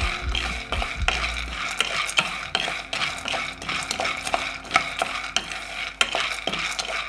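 Raw peanuts dry-roasting in a nonstick kadai, stirred with a wooden spatula: the nuts rattle and scrape across the pan in quick, repeated strokes.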